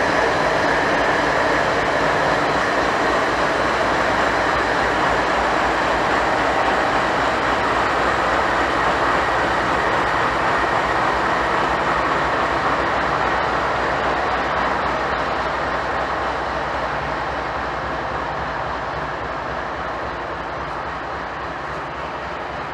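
Freight train rolling past at close range: the steady noise of autorack cars' steel wheels on the rails, easing off gradually near the end.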